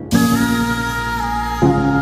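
Background music: slow, sustained chords that change twice, with a melody stepping downward.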